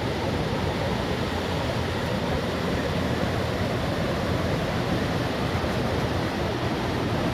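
Rushing water of a river or rapids: a steady, unbroken rush.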